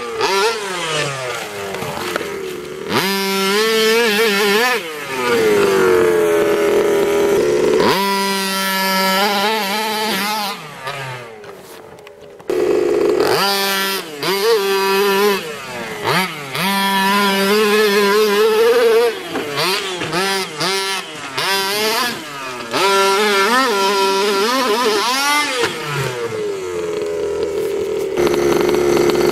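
HPI Baja 5T large-scale RC truck's single-cylinder two-stroke petrol engine revving in repeated throttle bursts as it is driven on sand, the pitch rising and falling with each burst. It eases off briefly about twelve seconds in before revving up again.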